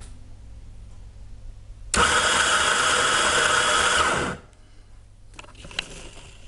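Electric coffee grinder motor starting suddenly about two seconds in and grinding for about two seconds. A timer set to 2 seconds then cuts the power, and the motor winds down with a falling pitch.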